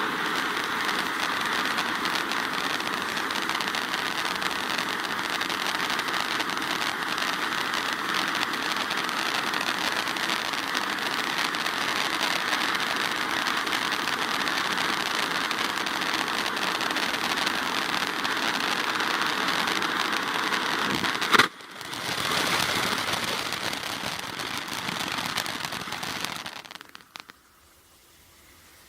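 Firework fountain burning with a steady hissing spray of sparks. About three-quarters through, a single sharp crack, the loudest moment, then a brief dip before the spray picks up again and dies out some five seconds later.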